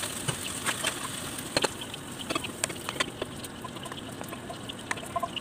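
Snow peas and bacon sizzling in a hot frying pan, a steady hiss broken by many sharp crackles and clicks.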